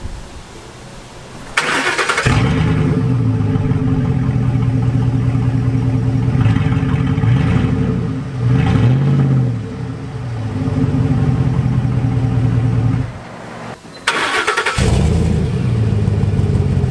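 A 2010 Ford F-150's 5.4-litre V8 is cranked and catches, then idles through a straight-piped exhaust with a couple of revs up and back down. It cuts off partway through, then the same engine is cranked and catches again and idles with a Cherry Bomb glasspack muffler fitted.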